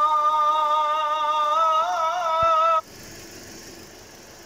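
A held, wavering sung note, music from a song or chant, cuts off abruptly about three seconds in. After it, the faint steady running of a 2018 Toyota Corolla's engine at idle, with a light hiss.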